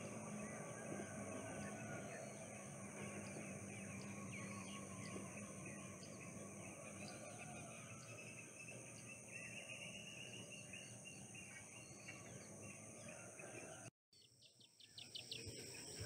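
Faint outdoor field ambience: small birds chirping here and there over a steady high-pitched hiss. Near the end the sound drops out for a moment, then a quick run of short bird chirps starts.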